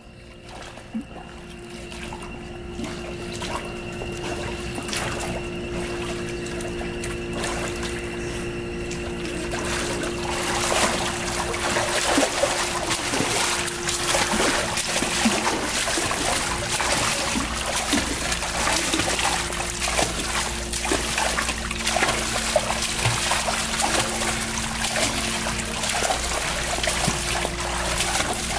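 Water splashing from a swimmer's arm strokes and kicks, getting louder about ten seconds in.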